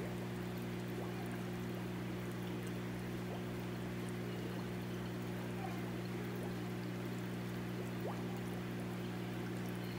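Water pouring steadily into a stingray tank from a filter return, churning the surface, over a steady low hum from the tank's equipment.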